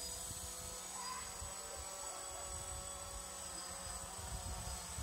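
Distant quadcopter drone's propellers giving a faint, steady buzzing whine, with a low rumble underneath.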